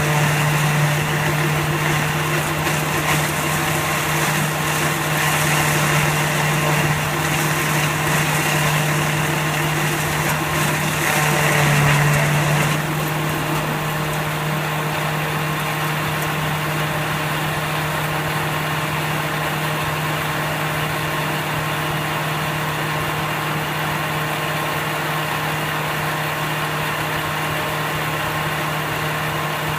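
Automatic silage baler machine running with a steady hum. Extra higher-pitched noise over the hum is loudest around twelve seconds in, then drops away, leaving the steady running sound.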